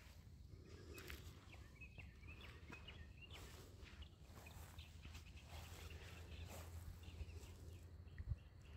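Near silence: faint outdoor background with a low wind rumble on the microphone, a few faint high bird chirps in the first few seconds, and soft footsteps on grass.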